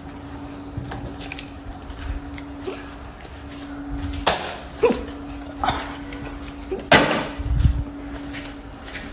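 Hiccups: about four sudden sharp hiccups bunched around the middle of the stretch, some with a short falling pitch, over a steady faint hum.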